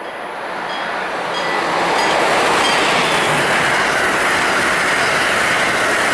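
Passenger train passing at speed, a rush of wheel and air noise that builds over the first two seconds and then stays steady and loud.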